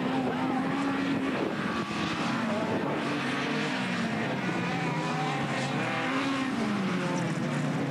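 Several autocross race cars' engines revving hard on a dirt track. Their pitches rise and fall and overlap as the cars accelerate out of the corner and pass, over a steady noisy rush.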